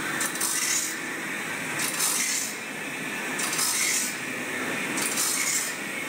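Band saw blade tooth-grinding machine at work: the abrasive wheel hisses against the blade in short passes about every one and a half seconds as the blade steps forward tooth by tooth, with light metallic clinks.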